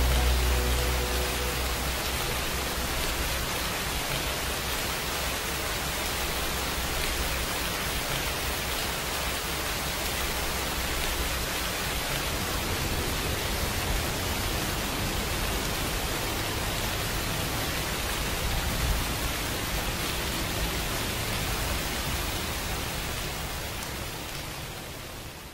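A steady hiss of heavy rain that fades out near the end, with music dying away in the first second or two.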